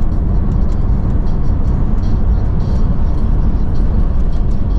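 Steady low rumble of a vehicle being driven on the road, engine and tyre noise.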